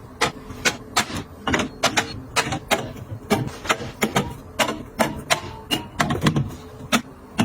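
Food containers and packages being handled and set down while a refrigerator is organized: an irregular run of sharp clicks and knocks, about two or three a second.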